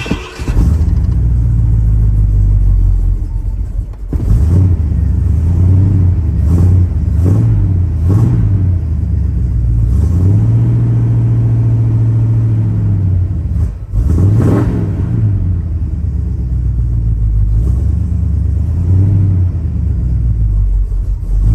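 1978 Ford F-150's engine running just after a start, heard from inside the cab, with the throttle blipped several times. The engine is held at raised revs for about two seconds near the middle, then revved once more in a quick rise and fall.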